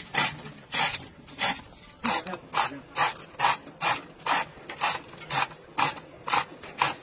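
Hand tool worked on metal engine parts in quick, even strokes: a few spaced strokes at first, then a steady two to three a second from about two seconds in.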